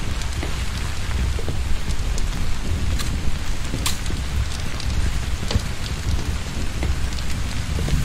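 Heavy, torrential rain falling steadily, a dense hiss with a low rumble beneath and scattered sharp ticks of drops striking close by.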